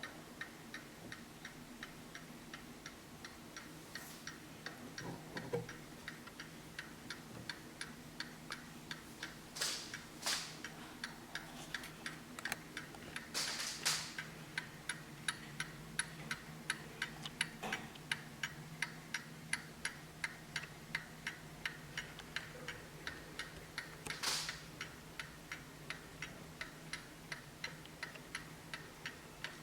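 Hermle skeleton mantel clock's movement ticking steadily, with a few louder knocks now and then.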